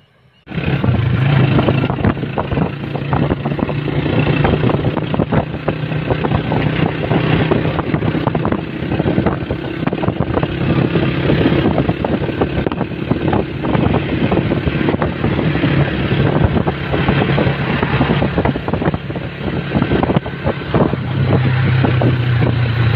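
Motorcycle engine running steadily at riding speed, with heavy wind buffeting the microphone; it cuts in suddenly about half a second in.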